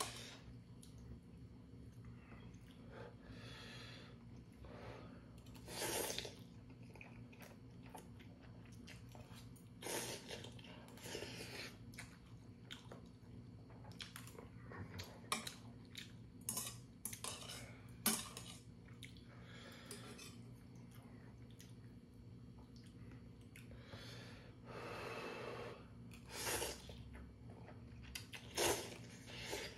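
Someone eating ramyeon: metal chopsticks clicking against a stainless steel pot, noodles slurped in several short noisy bursts, and chewing.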